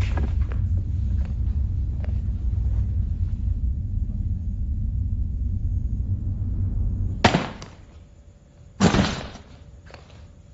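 Horror-film sound design: a steady low rumbling drone, broken about seven seconds in by a sudden loud hit, with a second hit about a second and a half later, the jump-scare stingers.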